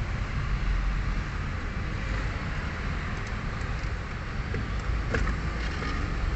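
Steady background rumble like road traffic, with a few faint light clicks about five seconds in.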